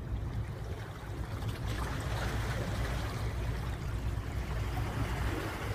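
Steady low rumble of a harbour tug's diesel engines heard across open water, with water washing and lapping over it.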